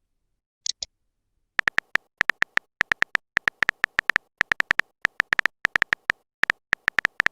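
Phone keyboard typing clicks from a messaging-app sound effect: a run of short, same-pitched ticks at an uneven, typing-like pace, after two quick high pops just before the first second.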